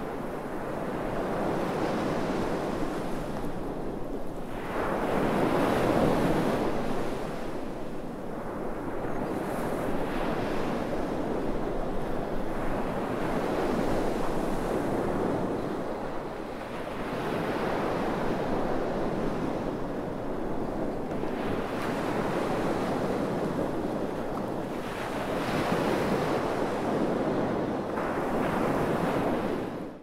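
Sea waves breaking and washing up a sandy beach, the surf swelling and ebbing in slow surges every few seconds, then fading out at the very end.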